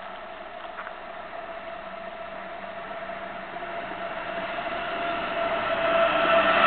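VR Class Sr2 electric locomotive hauling an Intercity train, approaching and growing steadily louder, with a steady whine over the rumble of the train.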